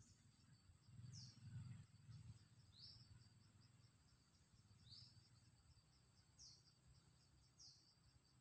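A bird giving about five short, high chirps a second or so apart, some sliding down and some sliding up in pitch. Behind them runs a steady high-pitched whine with fast ticking.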